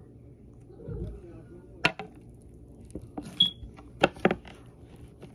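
Slime-covered tennis racket handled against a table: a dull thump about a second in, then about half a dozen sharp clicks and taps.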